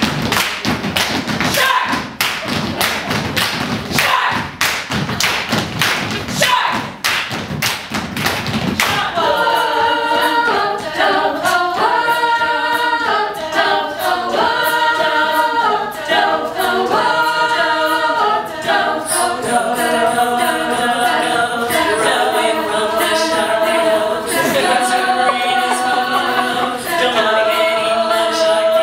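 Female a cappella group performing live: about nine seconds of fast, dense rhythmic percussive hits, then the voices come in with sustained chords in close harmony that change every two seconds or so.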